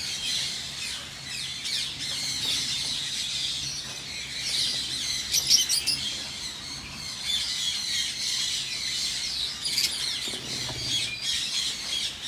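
A flock of lovebirds chattering and squawking in continuous shrill calls, with a cluster of sharper squawks about five seconds in.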